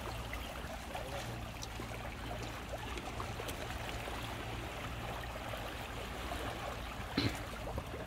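Small waves lapping and trickling over a pebble beach at the water's edge, a steady watery wash with a few light ticks, and one short louder sound about seven seconds in.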